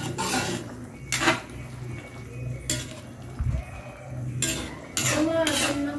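Metal ladle stirring soup in a wok, clinking and scraping against the pan's side a few times, then several quick clinks near the end.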